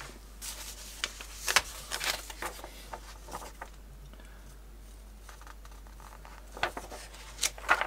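Magazine pages being handled and turned: soft paper rustles and light taps, a cluster near the start and another near the end with a quieter stretch between.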